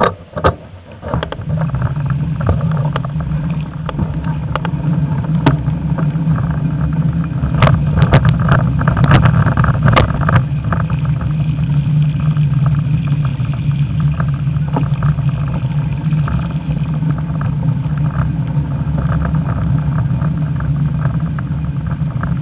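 A car's engine running steadily as the car goes through flash-flood water, with a cluster of sharp knocks about a third of the way in. The sound cuts off suddenly at the end.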